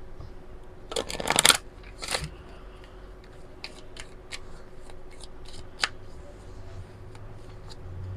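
A deck of oracle cards being shuffled by hand: a loud riffle about a second in, a shorter one just after two seconds, then scattered light clicks of cards being slid and squared.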